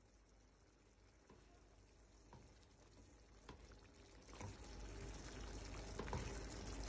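Meatball and potato stew simmering in a pan, stirred with a spatula that knocks the pan a few times; nearly silent at first, the bubbling and stirring grow louder from about four seconds in.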